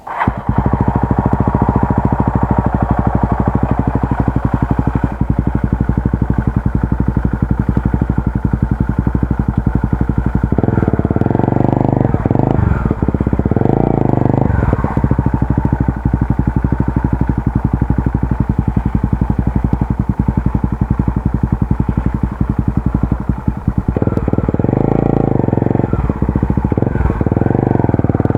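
Honda Tornado 250's single-cylinder four-stroke engine running loud and steady, cutting in abruptly at the start, with its note changing twice, about a third of the way in and again near the end.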